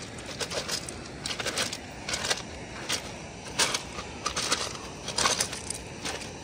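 Footsteps crunching on loose flat gravel and shale stones at a walking pace, each step a short gritty crunch.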